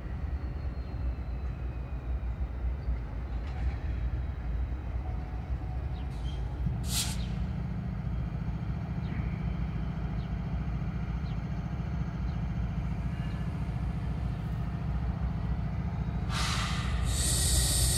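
Diesel-electric locomotives idling with a steady low rumble. About seven seconds in, the engine sound grows stronger, with a brief hiss of air. Near the end a loud hiss of air starts, as from air brakes.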